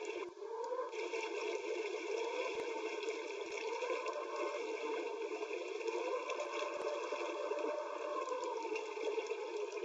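Recorded sound effect of running water, a steady stream played back as the water brush's sound.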